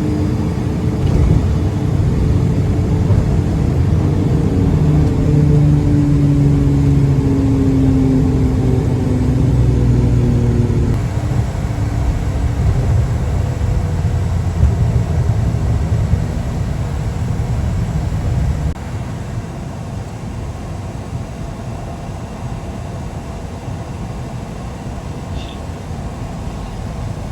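Cabin rumble of a Cessna Citation CJ3 business jet. Through the first ten seconds or so it carries several tones that slowly fall in pitch. About two-thirds of the way in the rumble drops abruptly in level to a quieter steady noise.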